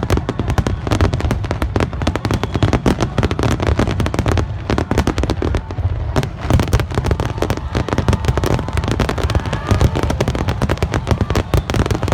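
Fireworks display in a dense barrage: many aerial shells bursting in quick succession, with overlapping sharp bangs and crackle over a continuous deep rumble and no let-up.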